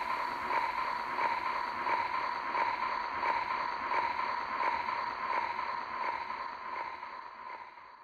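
Gramophone-record surface noise closing the music track: a steady hiss with one steady tone running through it and a soft click about every 0.7 seconds, like a stylus riding the run-out groove. It fades out over the last couple of seconds.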